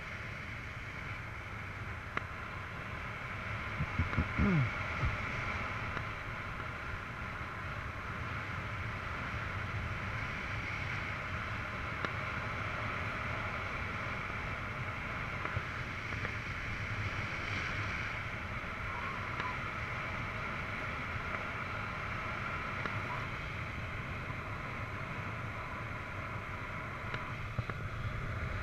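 Steady rush of air past a paraglider in flight, heard on the pilot's camera microphone. About four seconds in there is a brief sound falling in pitch.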